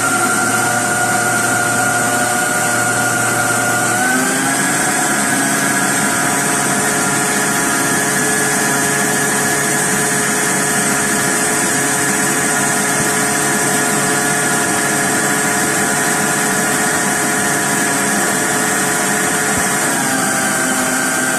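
Electric countertop blender running steadily at speed, beating eggs and sugar until the mixture turns pale and creamy. Its motor whine steps up in pitch about four seconds in and drops slightly near the end.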